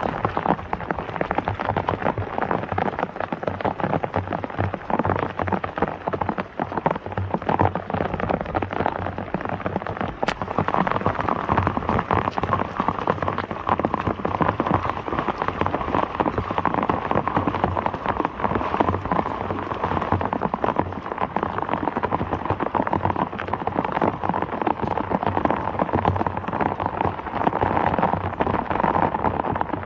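Heavy monsoon downpour: a steady, dense hiss of rain pelting down on the ground and runoff, made of countless tiny drop ticks.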